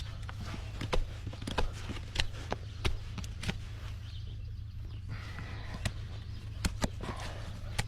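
Irregular sharp snaps and clicks of hoof trimming on a Shire horse's hoof, several in the first three and a half seconds and a few more near the end, over a steady low hum.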